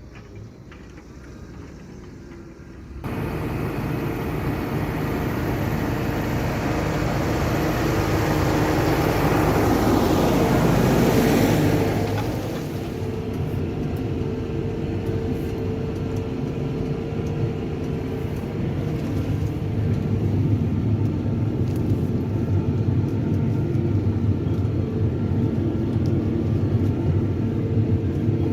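Tractor diesel engine running steadily under load while ploughing. It cuts in suddenly about three seconds in, grows louder to a peak around eleven seconds, then settles into a steady drone.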